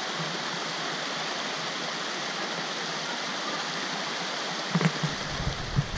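Creek water rushing steadily over a rock shelf and small rapids. Some low thumps and rumble come in near the end.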